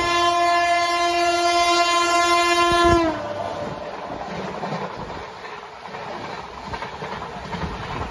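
A train horn sounds one steady note for about three seconds, dipping slightly in pitch as it cuts off, followed by the steady running noise of a train passing close by.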